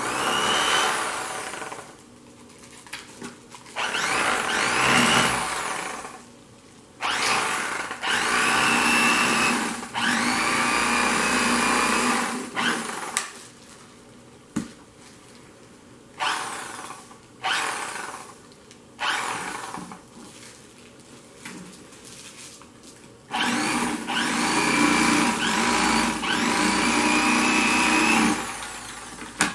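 Corded electric fillet knife running in repeated bursts of one to five seconds, its motor whine rising as each burst starts, as the blades saw through a redfish along the backbone to cut off a fillet.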